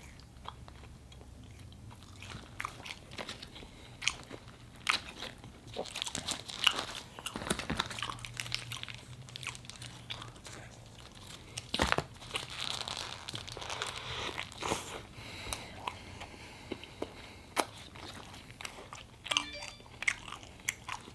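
A person biting and chewing In-N-Out fast food (a burger with animal fries), with many short mouth clicks and smacks scattered throughout.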